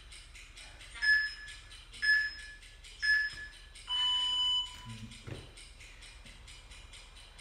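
Workout interval timer counting down: three short beeps a second apart, then a longer beep at a different pitch marking the start of the work interval. Faint background music with a ticking beat runs underneath, and a soft thump follows.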